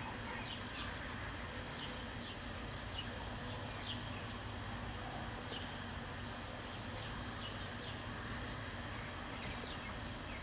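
Outdoor insect ambience: a steady, evenly pulsing high trill of insects, with short high falling chirps every second or so and a low steady hum of distant traffic underneath.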